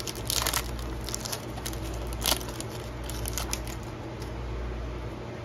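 Foil wrapper of a football trading-card pack crinkling as it is torn open and handled, with a sharper crackle about two seconds in and a few lighter rustles after. A steady low hum runs underneath.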